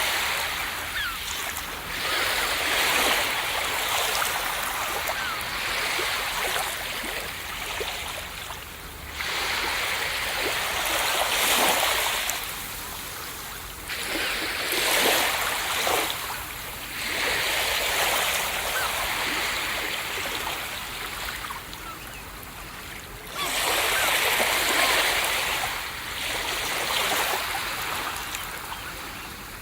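Ocean surf breaking on a beach, each wave surging in with a rush of hiss and then fading away. Loud swells arrive about every five to nine seconds.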